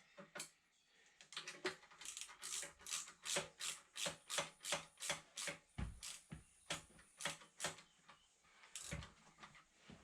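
Ratchet wrench clicking in quick, even strokes, about three a second for several seconds, then once more near the end, as a nut is run down.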